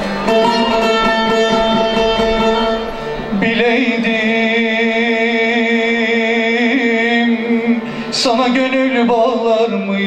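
Turkish folk music played live: a bağlama (saz) with a steady held drone underneath, joined about three and a half seconds in by a long, wavering melodic line with vibrato that breaks off briefly near the end.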